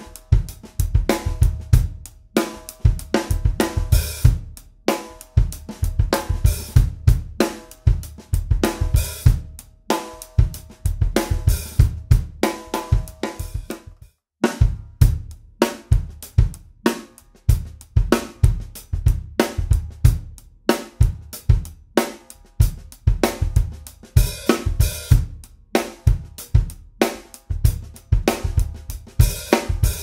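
Drum kit groove on a Pearl Session Studio Select 14x5.5 snare with a birch-mahogany shell and coated head, together with hi-hat, cymbals and bass drum. The playing breaks off for a moment about halfway and starts again with the snare tuned very high.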